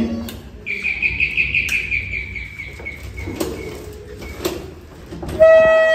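A high, fluttering chirp-like tone drifts slightly down over about two seconds, with a few clicks. About five seconds in, a plastic party horn (a vuvuzela-style baaja) sounds one loud, steady blare.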